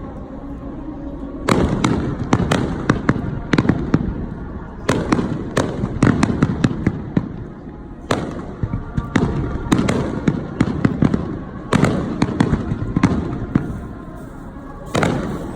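Fireworks bursting in volleys of rapid crackling pops, a new cluster starting every three seconds or so over a low rumbling background.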